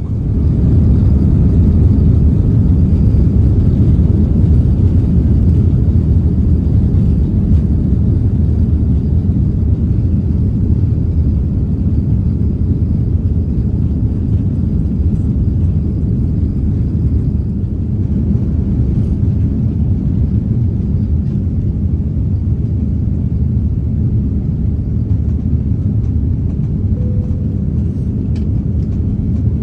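Loud, steady low rumble of an Airbus A330-300's jet engines and airframe heard from inside the cabin. It jumps up sharply right at the start and then holds steady.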